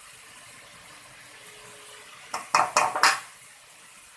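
A spoon clattering against a bowl: a quick run of four or five sharp knocks about two and a half seconds in, over a faint steady hiss, as besan and curd are put together for kadhi batter.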